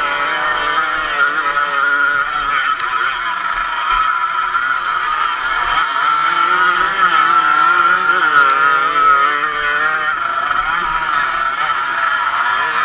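Dirt bike engine heard from the bike's own onboard camera, its revs rising and falling continuously as the rider works the throttle.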